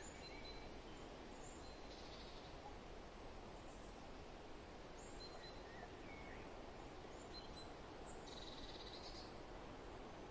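Steady, faint wind noise with scattered short, high bird chirps over it, and a brief buzzy bird trill about eight seconds in.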